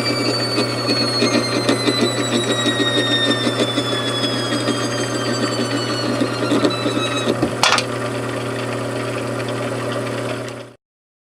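Machine tool running steadily, a constant hum under a high whine that slowly falls in pitch. A brief sharp noise comes about seven and a half seconds in, and the sound cuts off abruptly near the end.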